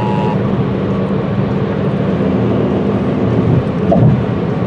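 Emergency Alert System two-tone attention signal ending about a third of a second in, followed by a steady loud hiss and rumble with a low hum, like broadcast or radio static.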